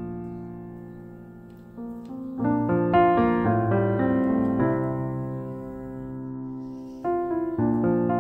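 Background piano music: slow, sustained chords that ring out and fade, with new chords coming in about two seconds in and again near the end.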